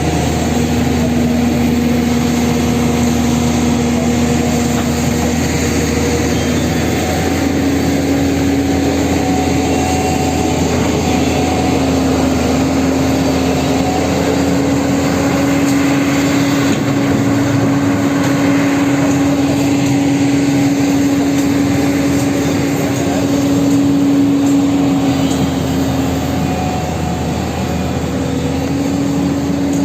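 An engine running steadily at a constant speed, its hum stepping up slightly in pitch about six seconds in.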